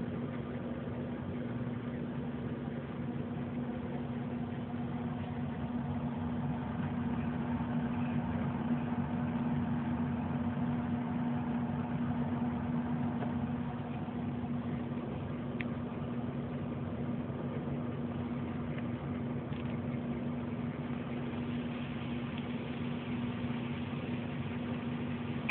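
Steady low hum with a hiss over it, the sound of a motor or appliance running.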